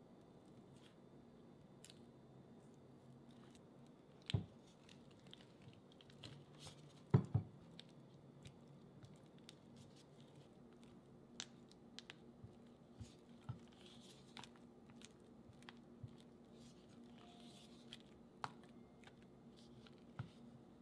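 Silicone spatula mashing and stirring softened cream cheese in a glass bowl: soft squishing and scraping with scattered light clicks, and two louder knocks about four and seven seconds in, over a steady low hum.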